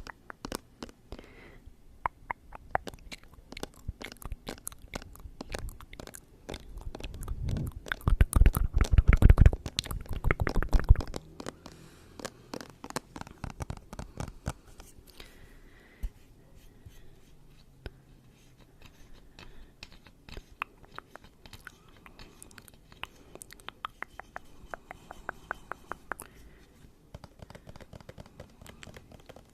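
Close-miked ASMR mouth sounds: a long run of small wet clicks and crackles, with a louder stretch of rapid crackling and low rumble about a quarter of the way through.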